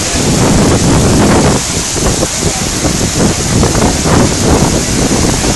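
Heavy rain pouring down in a dense, steady hiss, with wind buffeting the microphone in irregular low gusts.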